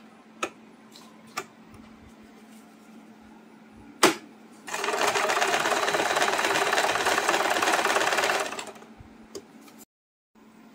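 Usha Janome Stella electric sewing machine running and stitching through fabric for about four seconds, starting about halfway through and fading out near the end. A few light clicks come before it, with one sharp click just before the stitching starts.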